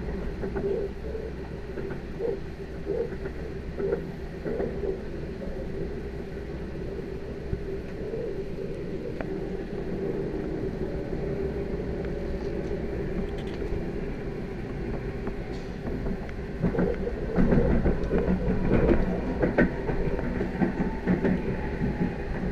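Moscow Central Circle electric train (ES2G Lastochka) running, heard from inside the carriage: a steady running hum with the wheels clacking over the rails about once every 0.7 seconds at first. Near the end the noise grows louder and rougher.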